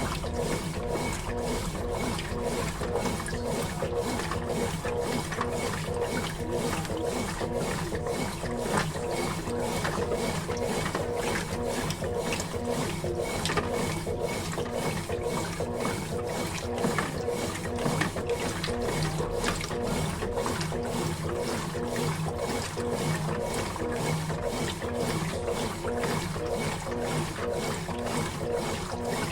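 Consul Facilite 11 kg top-loading washing machine agitating in its wash stage: a steady motor hum with water churning, pulsing about twice a second.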